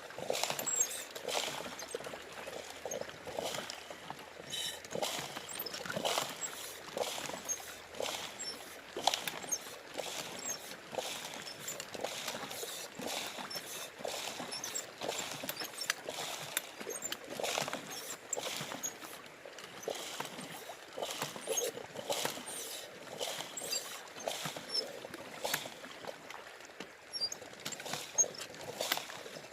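Gravel and small stones clicking and rattling irregularly in water as riverbed material is worked for gold.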